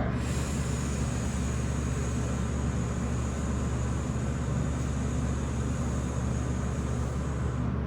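A long, steady breathy hiss of a forceful exhale, blowing hard while drawing the core in, over a constant low rumble of background noise. The hiss cuts off near the end.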